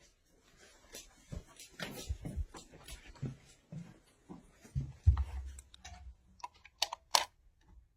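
Clicks and knocks of a light-bulb test lamp's plug being pushed into and pulled out of wall sockets, with a thump about five seconds in and a few sharp clicks near the end.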